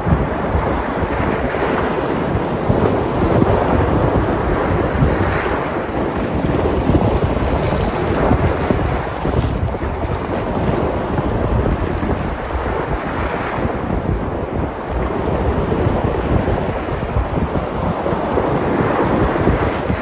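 Sea surf: waves breaking and washing in steadily, with wind buffeting the microphone.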